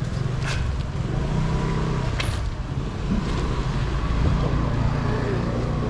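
Steady low hum of an idling motor-vehicle engine, with two sharp clicks about half a second and two seconds in.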